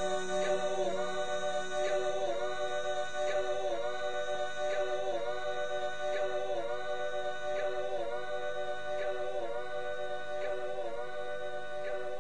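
Music with sustained choir-like voices holding steady chords, pulsing about twice a second.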